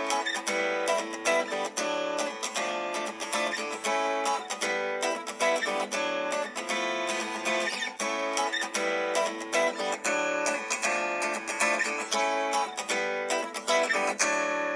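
Samsung Galaxy Grand Prime ringtone: a plucked guitar tune of quick, evenly paced notes.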